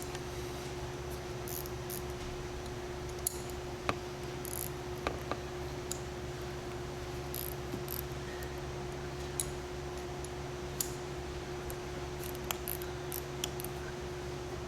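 Light, scattered metal clicks and taps from a 7/16 box-end wrench working the 1/4-20 machine screws off a filler valve body's side cover, over a steady low hum.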